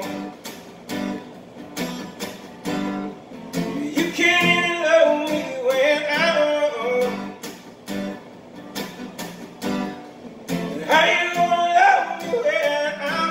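Acoustic guitar strummed in a steady rhythm, with a voice singing along in phrases about four seconds in and again near eleven seconds.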